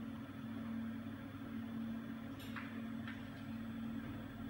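Steady low electrical hum from the ZSK JB08 embroidery machine standing powered up but stopped. Two faint short high sounds come through it about two and a half and three seconds in.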